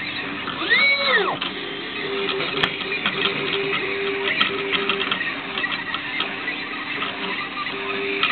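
TENETH T24-A cutting plotter running an automatic contour cut, its head motors whirring and clicking. About a second in, a quick move swoops up in pitch and back down, then short hums start and stop as the head traces the shapes.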